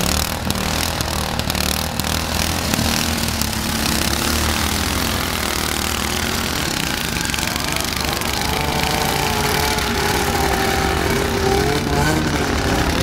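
Small-engine racing lawn mowers idling steadily. About eight seconds in, a higher, wavering engine tone joins and holds.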